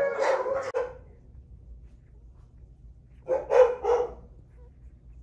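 Alaskan Malamute vocalizing: a wavering, howl-like call that ends less than a second in, then three short, loud yelps about three seconds in.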